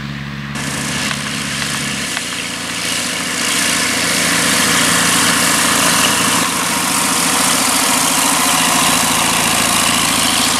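Light aircraft's piston engine and propeller running steadily as a small high-wing microlight taxis close past. The engine note changes abruptly about two seconds in and grows louder soon after.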